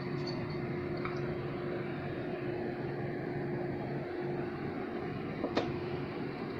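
Steady mechanical hum with a constant low tone. There is a faint click about a second in and a sharper click about five and a half seconds in.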